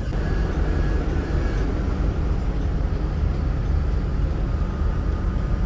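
Steady low rumble of a Greyhound coach on the road, heard from inside the passenger cabin.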